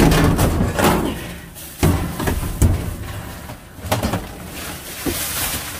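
Items being moved around in a dumpster: several separate thumps and knocks as things are shifted and set down.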